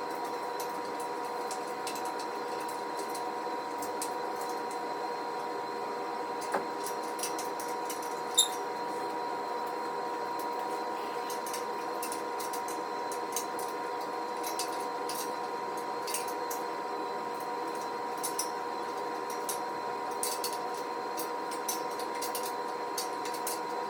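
Steady hum under scattered light clicks and clinks of metal parts and hardware being handled while a steel squat rack is put together, with two sharper knocks near the first third.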